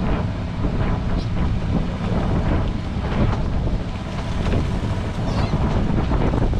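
Wind buffeting the microphone on a boat at sea: a steady, loud low rumble of noise with no distinct events.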